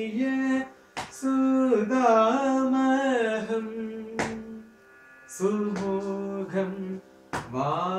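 Male voice singing a Carnatic composition in raga Salagam, long melismatic vowel phrases that break off twice into short pauses, over a steady drone. A few sharp hand slaps mark the beat of the Adi tala.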